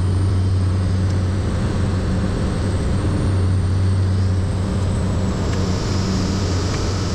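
Loud, steady engine drone with a deep hum and a faint high whine that dips slightly in pitch about five seconds in.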